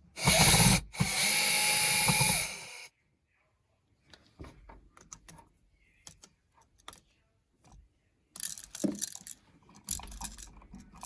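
Cordless power driver unscrewing the old light switch's two mounting screws: a short run, then a steadier one of about two seconds. Then small clicks and rattles as the loosened switch and its wires are handled.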